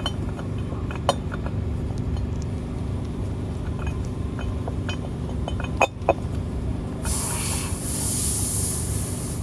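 Metal clinks of bolts and hand tools while a bracket is bolted to an engine mount: one clink about a second in and two sharp ones close together near six seconds, over a steady low rumble. A hiss lasts about two seconds near the end.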